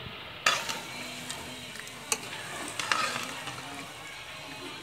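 Chicken and gravy sizzling in a wok while a metal spoon stirs it, scraping and clinking against the pan. The sharpest clink is about half a second in, and a few more follow around two and three seconds in.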